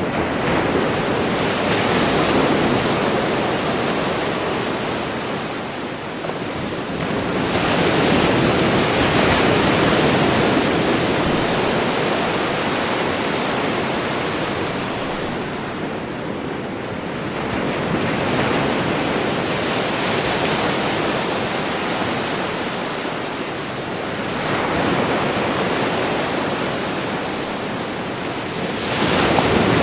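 Sea waves breaking on a shore: a continuous wash of surf that swells and eases as each wave comes in, about five times.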